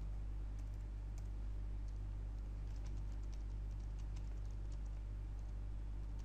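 Computer keyboard typing: faint keystroke clicks at an uneven pace over a steady low electrical hum.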